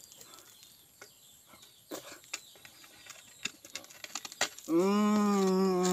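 A man's loud, held straining groan, about a second and a half long near the end, as he sets his teeth on a concrete hollow block. Before it there are only faint scattered clicks and scrapes as the block is handled.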